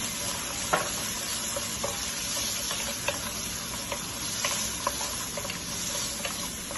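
Chopped onion, tomato, cashews and green chillies sizzling in hot oil in a nonstick frying pan while a wooden spatula stirs them, with short scrapes and taps of the spatula on the pan every second or so. The vegetables are being sautéed until soft.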